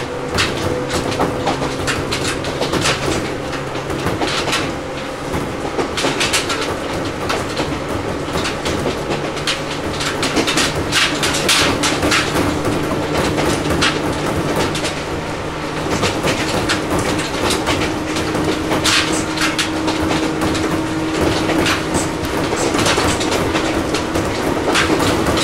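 Ohmi Railway 800-series electric train running, heard from inside motor car MoHa 1809: a steady rumble of running noise, with the wheels clacking over rail joints now and then, often in pairs. A faint motor hum rises slowly in pitch through the second half.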